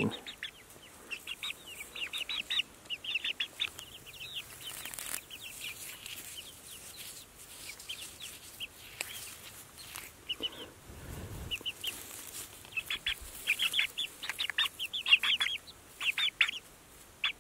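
Young chickens peeping, short high calls coming in quick runs of several at a time as they forage and peck.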